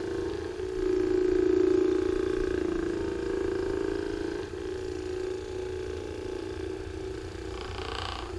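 Electric handheld massager buzzing with a steady motor hum, growing a little louder and softer as it is worked over the muscles.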